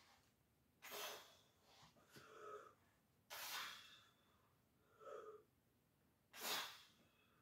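Faint, sharp breathing of a man straining through a set of dumbbell chest flies: about five quick breaths, roughly one every second and a half, two of them with a trace of voice.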